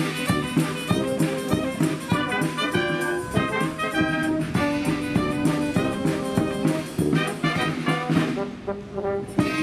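Brass band music: trombones and trumpets playing a tune over a steady beat.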